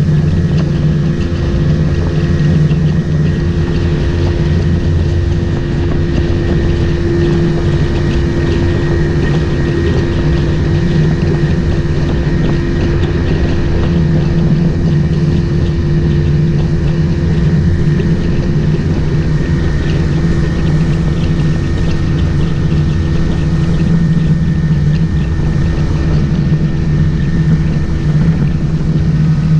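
Motorboat engine running steadily at an unchanging pitch.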